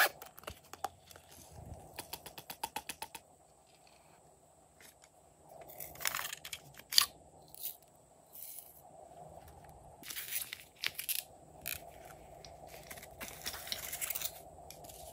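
Handling sounds of small plastic and paper items. A zipper on a silicone pouch is pulled open in a quick run of clicks about two seconds in. Glitter is shaken out of a small plastic cup in short rustling bursts, and near the end a cardboard package rustles as it is opened.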